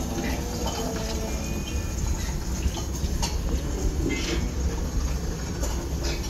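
A steady low rumble with a few scattered clicks and knocks and some faint pitched sounds over it.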